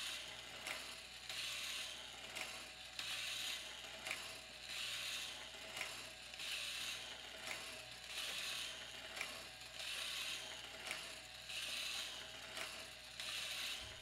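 Woodland Mills RS30 Pro sawmill blade sharpener cycling with its grinding wheel off: the feed pawl pushes the band blade forward one tooth at a time, a short rasping stroke then a click about every second and a half to two seconds, over a steady low motor hum.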